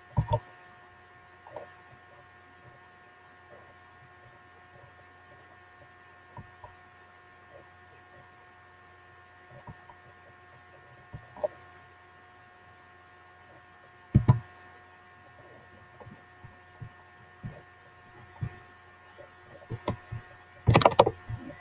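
Steady electrical hum picked up by a computer's microphone, with several faint steady tones in it. Scattered faint clicks run through it, with louder knocks about fourteen seconds in and a quick cluster near the end.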